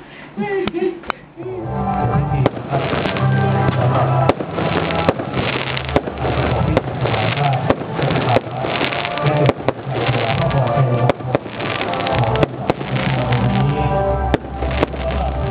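Fireworks going off in a rapid series of sharp bangs and crackles over music, starting about a second and a half in.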